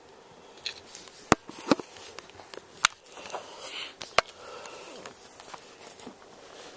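Handling noise: rustling and shuffling with several sharp clicks and knocks, the loudest about one and a half, three and four seconds in.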